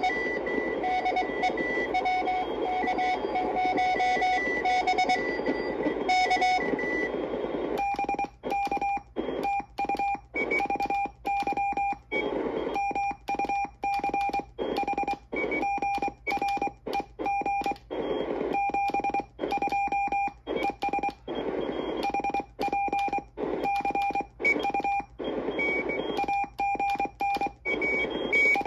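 Morse code tones from a QRP CW transceiver's speaker over steady receiver hiss. For the first few seconds one keyed tone sends characters. From about eight seconds in, a slightly higher keyed tone takes over, and the hiss cuts out in short gaps between the elements.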